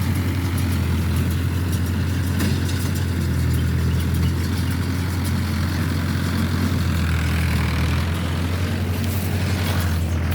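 Mahindra tractor's diesel engine running steadily, a constant low hum.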